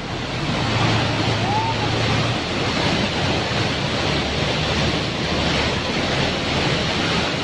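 Fast-flowing floodwater rushing, a steady unbroken noise, with a low hum during the first two seconds.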